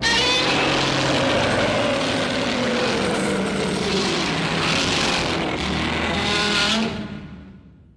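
Heisei-era Godzilla roar sound effect: one long, harsh roar that starts abruptly, with pitch sliding down and up over a rough noisy layer, and fades out over its last second.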